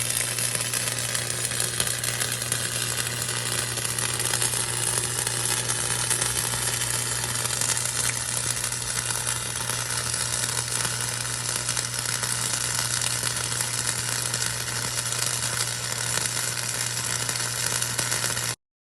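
Harbor Freight welder's arc laying a test weld on steel: a steady, even crackling sizzle over a low electrical buzz, held for about eighteen seconds and cutting off suddenly near the end.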